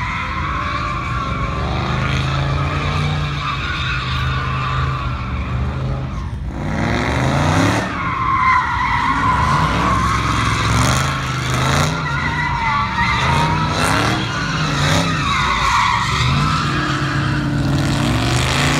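Dodge performance car's V8 engine revving hard while its tyres squeal without a break, the squeal wavering as the car slides through drifts or donuts. The engine climbs in pitch twice, about a third of the way in and again near the end.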